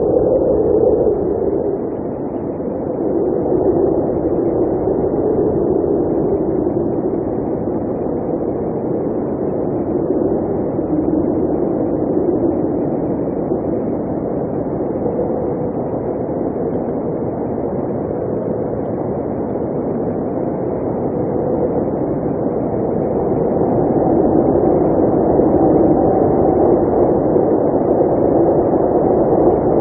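Blizzard wind blowing, a steady low rushing that swells and eases, dipping briefly about two seconds in and growing stronger near the end.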